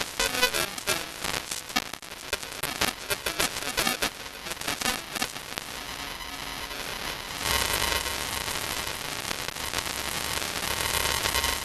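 Faulty broadcast audio from a news channel's sound problem: distorted music broken up by dense crackling and clicks. About seven and a half seconds in the crackling gives way to a steadier, hissy distorted sound with faint held tones.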